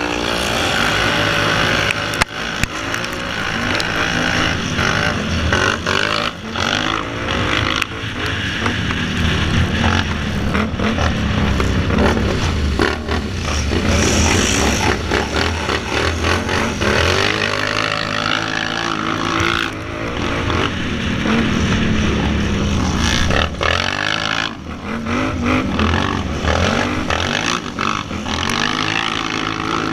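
Two-cylinder Can-Am ATV engine riding hard on a dirt track, its revs repeatedly rising and falling with the throttle.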